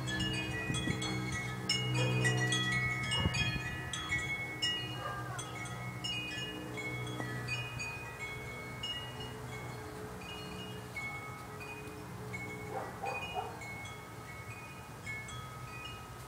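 Chimes ringing: many short, clear notes at different pitches, overlapping and often stepping downward in runs, over a low steady drone that fades somewhat after the first few seconds.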